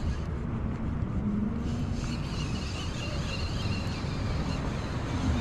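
Steady wind noise on the microphone over small waves washing, with a faint low hum coming and going.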